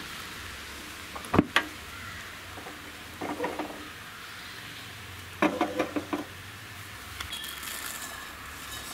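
Jaggery syrup, boiled down and ready, bubbling and hissing steadily in a steel saucepan. A sharp click comes about a second and a half in, and metal clinks follow a few seconds later as the pan is lifted off the burner.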